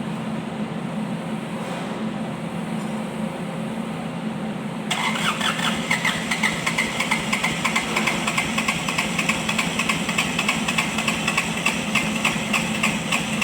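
Kubota D905 three-cylinder diesel engine running with a steady low hum. About five seconds in, a louder, uneven clatter sets in, pulsing a few times a second.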